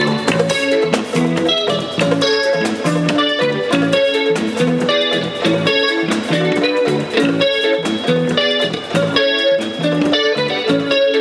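Live African guitar-band music: an electric guitar picks a quick, repeating melody over bass guitar, drum kit and hand drums.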